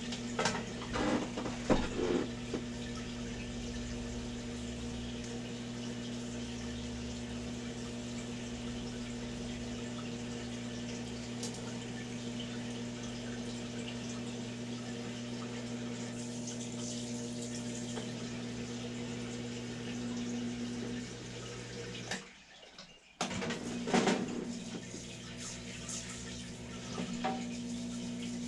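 Liquid running steadily from a tap or washer nozzle as a transmission part is rinsed, over a steady pump or motor hum. A few metal clanks from the part being handled come near the start and again about 24 seconds in, and the sound cuts out almost completely for about a second just before that.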